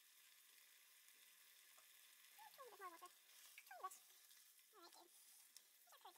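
Faint stirring of thick curry sauce in a small nonstick saucepan with a spatula: a few short squelching, squeaky sounds, about one a second, starting about two seconds in.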